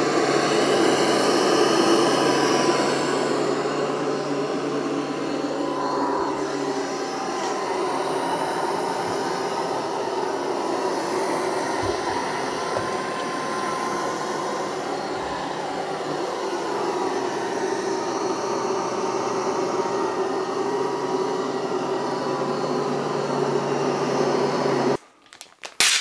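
SwitchBot K10+ Pro mini robot vacuum running, a steady whir of its suction motor and brushes; it cuts off abruptly near the end.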